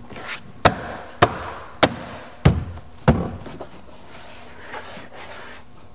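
Plastic door trim panel being pressed onto a car door: five sharp knocks about half a second apart as its retaining clips are struck home, the fourth and fifth heaviest.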